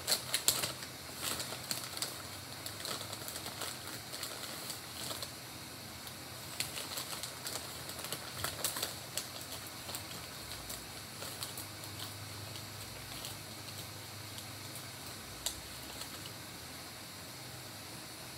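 Beads being handled and strung onto the cord: small clicks and rattles, thickest in the first few seconds and again around eight seconds in, then only an odd click later.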